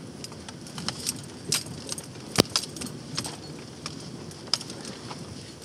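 Modified Ford Econoline E-350 van wading through a fast glacial river: water splashes and sloshes against the body over a low rumble, with scattered sharp clicks and rattles and one loud knock about two and a half seconds in. Heard re-recorded through a TV's speaker.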